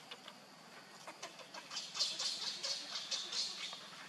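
Baby macaque giving rapid, high-pitched squealing cries while being pinned down by another monkey: a quick run of short shrieks, about five a second, starting about a second in, that grows louder in the middle.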